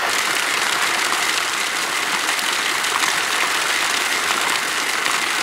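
Fountain water splashing into its basin: a steady, even rushing noise.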